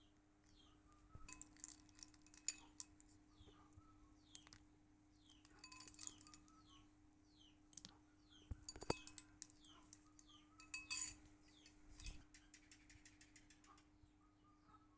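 Faint, scattered clinks of glass and metal, like kitchenware being handled, over a steady run of short falling chirps about twice a second and a faint steady hum.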